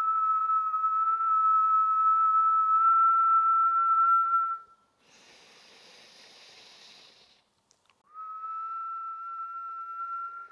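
A woman whistling one long steady note as a slow breathwork exhale, stopping about four and a half seconds in. A soft deep inhale through the nose follows, and then the whistled exhale starts again on the same note, softer.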